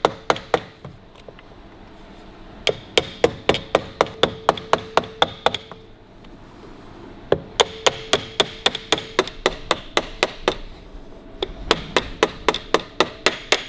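Small hammer tapping lightly and quickly around the rim of a 1941 Harley-Davidson WL speedometer, rolling the bezel's lip over the glass to hold it. The taps come in four runs of about four to five a second with short pauses between, each with a slight metallic ring.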